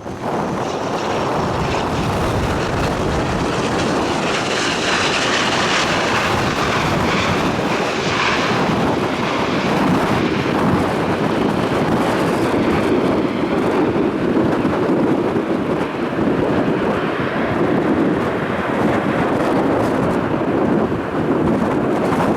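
Airliner engines running loud as the plane passes the airfield, with gusty wind buffeting the microphone.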